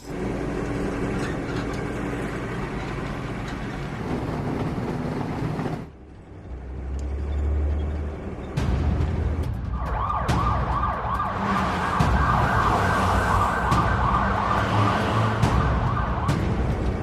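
Police siren wailing in a fast warble, starting about ten seconds in and stopping near the end, over a rumble of vehicle noise.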